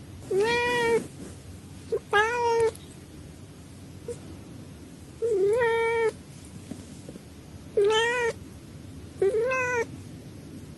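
A cat meowing five times, each meow about half a second to a second long, with pauses of one to three seconds between them.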